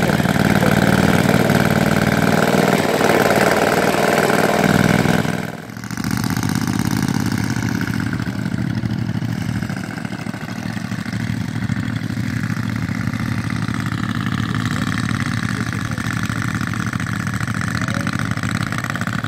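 Model Spitfire's Kolm engine idling, loud and close for the first five seconds or so; the sound breaks off abruptly about five and a half seconds in and the engine idling carries on quieter and farther off.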